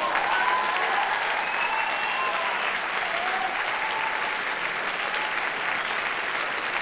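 Audience applauding steadily, with scattered cheers and whoops.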